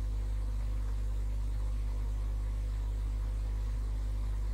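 Steady low electrical hum with a faint hiss: the background noise of the recording setup, unchanging throughout.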